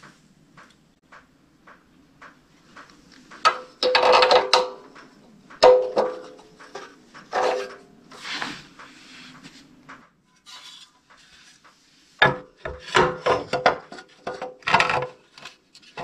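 Metal parts clinking, knocking and scraping as an aluminium carburetor adapter plate is handled and fitted onto the carburetor mounting of a Honda EB6500 generator, several knocks leaving a brief metallic ring. A quick run of clicks and rattles comes near the end.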